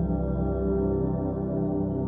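Ambient background music of sustained low, steady tones with no beat.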